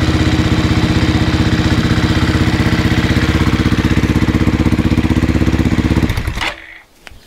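CCM Spitfire's single-cylinder four-stroke engine, Husqvarna 630-derived, idling steadily to warm the oil before an oil change. It is switched off about six seconds in and stops abruptly.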